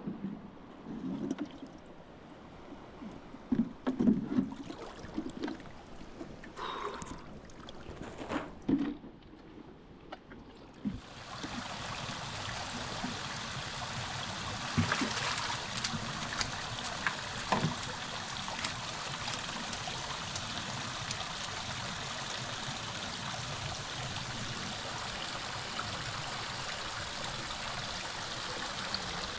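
Scattered knocks and handling noises for about the first ten seconds, then a steady rush of flowing stream water that sets in suddenly about eleven seconds in.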